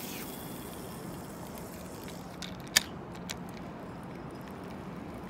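Steady hum of city traffic, with a few sharp clicks in the middle, one much louder than the others.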